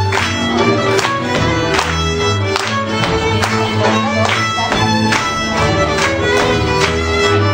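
Live Hungarian folk dance music: a fiddle leading over a low accompaniment, with a steady beat.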